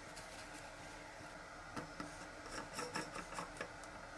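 Bathroom sink clicker drain cap being turned and seated by hand: a run of small, irregular clicks and scrapes in the second half.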